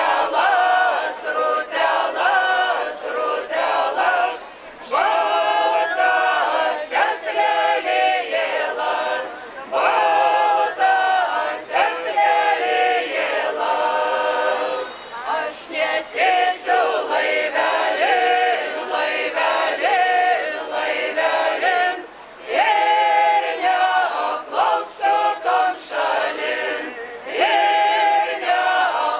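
A folk ensemble of mostly women's voices, with a couple of men, singing a Lithuanian folk song a cappella, in phrases of several seconds with short breaths between them.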